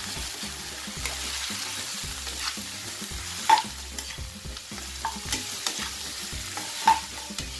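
Parboiled beef ribs with onion and ginger sizzling in a nonstick pan while a metal spoon stirs them. A few sharp clinks of the spoon against the pan stand out, the loudest about three and a half seconds in and again near the end.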